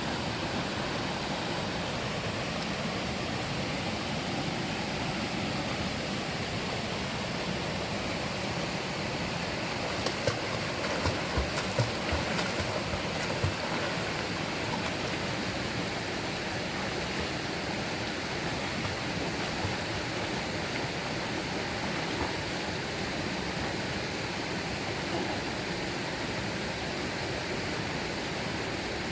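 Mountain valley stream, water rushing steadily, with a cluster of a few short knocks about ten to thirteen seconds in.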